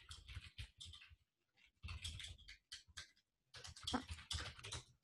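Faint keystrokes on a computer keyboard, quick clicks in three short runs with brief pauses between.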